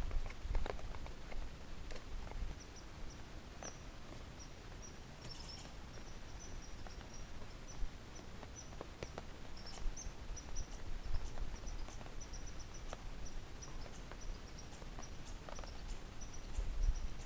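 Night insects, crickets or katydids, chirping in short high pulses that repeat over and over, with a few scattered knocks and rustles of handling.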